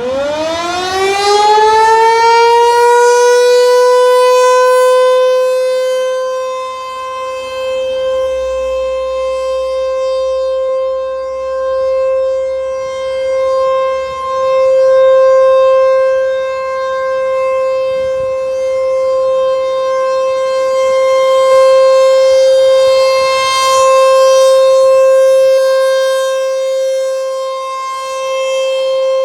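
An ASC T-128 outdoor warning siren sounding for a test of the Three Mile Island emergency sirens. It winds up fast over the first few seconds, then holds one steady high tone, its loudness swelling and fading every several seconds.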